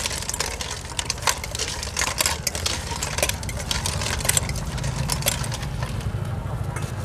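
Metal spoon clinking and scraping against a stainless steel bowl as a wet salad of shrimp and cockles is tossed, in quick irregular clinks over a steady low hum.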